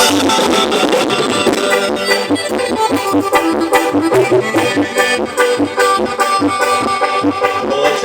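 Band music with a steady beat and a reedy melody instrument, with no singing.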